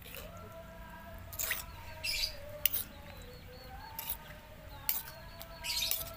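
Metal spoon scraping against a rough stone mortar (cobek) as it stirs fish in sauce: about six short scrapes at uneven intervals, the longest near the end.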